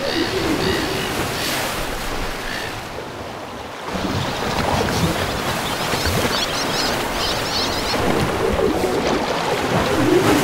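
Ocean surf breaking and washing over a rocky, pebbly shore as a steady wash of noise, dipping briefly about three seconds in.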